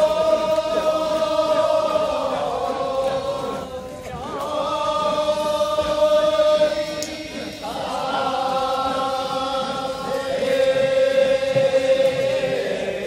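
Kiyari, a traditional Japanese work chant, sung by a group of voices in long, drawn-out notes that waver in pitch. It comes in three phrases with short breaks about four and seven and a half seconds in.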